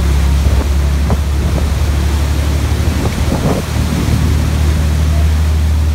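Boat engine running with a steady low drone, under the rushing of the churning wake and wind.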